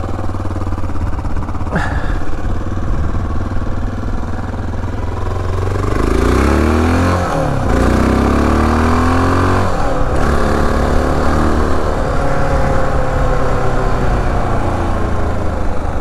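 Honda XR650L's single-cylinder four-stroke engine running under way. Its revs rise and fall several times from about six seconds in as the bike accelerates, with a single click near two seconds in.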